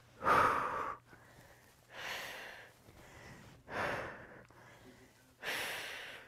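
A woman's forceful exhalations, four puffs of breath about every second and a half to two seconds, breathing out with the effort of each jackknife crunch.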